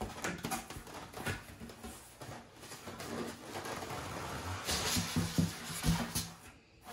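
Cardboard box flaps scraping and rustling as a shipping box is opened, then a foam cooler lid rubbing and squeaking against the cooler as it is pried up and lifted, loudest between about four and a half and six seconds.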